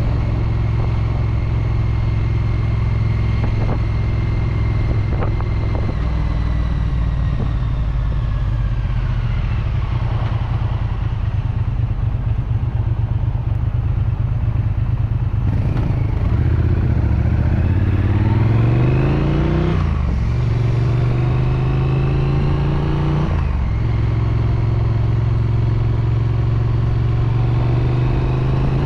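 Triumph Street Twin's 900 cc parallel-twin engine and exhaust, heard from the rider's chest while riding. It runs steadily, eases off and falls in pitch about a third of the way in, then pulls hard with rising revs, with two quick upshifts about 20 and 23 seconds in, before settling into a steady cruise near the end.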